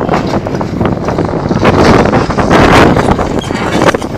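Wind buffeting the microphone: a loud, rumbling rush of noise that rises and falls in gusts.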